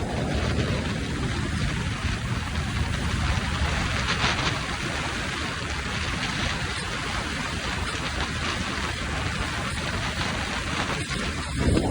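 Steady rushing wind and road noise from a motorcycle at speed, an even hiss without a clear engine note.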